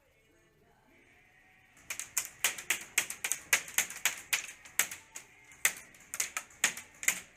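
Airsoft guns firing, a quick irregular string of sharp single-shot snaps, several a second, starting about two seconds in after a quiet start.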